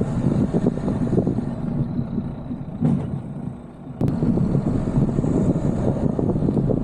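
Uneven rumble of wind buffeting a car-mounted camera, mixed with tyre and road noise from a car driving over a dirt track. The noise sags briefly, then cuts back in abruptly about four seconds in.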